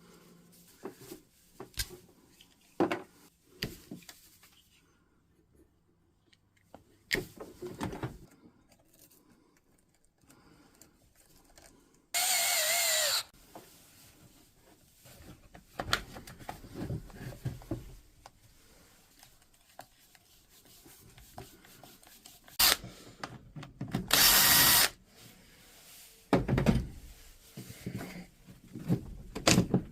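Workshop handling sounds with scattered clicks and knocks, and a power drill-driver running in two short bursts. The first burst, about a third of the way in, carries a slightly wavering whine; the second comes later on.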